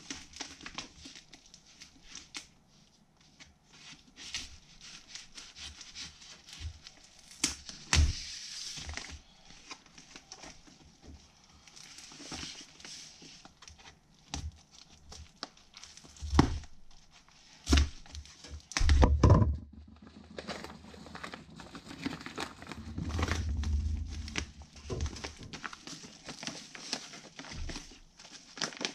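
A white plastic mailer package being cut and torn open with a serrated knife: irregular crinkling, rustling and ripping of the wrapping. Several dull knocks of the package against the tabletop come in between, the loudest about two-thirds of the way through.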